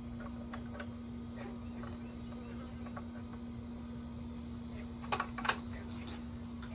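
Light metallic clicks and taps of hands and a wrench working on a miter saw's blade bolt while the new blade is tightened on, with a short cluster of sharper clicks about five seconds in, over a steady low hum.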